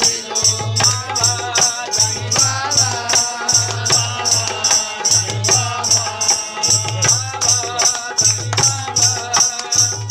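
Devotional folk singing with a dholak drum: a voice sings over low drum beats while hands clap a steady beat about three to four times a second.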